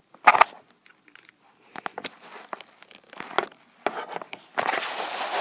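Plastic wrestling action figures handled close to the microphone: a sharp knock just after the start, then scattered clicks and rustling that grow denser near the end.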